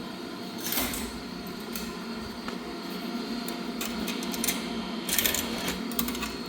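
Steady hum of laundry-room machinery, with a few short clicks and rattles about a second in and again around five seconds in.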